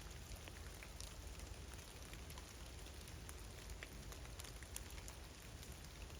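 Steady rain falling, with scattered raindrops ticking sharply on nearby surfaces.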